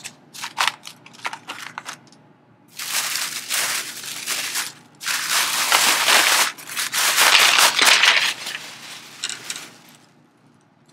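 Plastic shopping bag rustling and crinkling in three long stretches as packaged craft supplies are pulled out of it, with a few light clicks and taps of packages handled on the table in the first couple of seconds.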